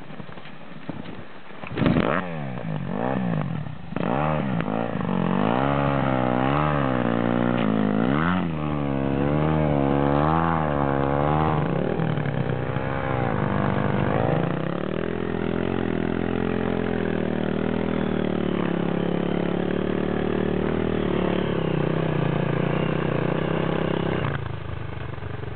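Honda dirt bike's single-cylinder four-stroke engine revved hard about two seconds in, then blipped up and down over and over as the bike is worked free of deep snow. It then holds a steady high note for about ten seconds as the bike pulls away, easing off near the end.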